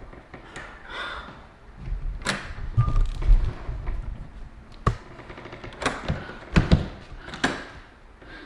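Several sharp, irregularly spaced knocks and thuds, with a low rumble between about two and three and a half seconds in.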